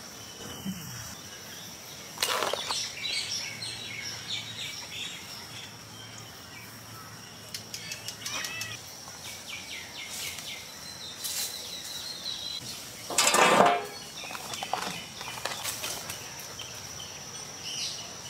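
Scattered rustles and clicks from live spiny lobsters being handled and tied to sticks with twine, with a louder rustle about thirteen seconds in, over a steady high drone of insects.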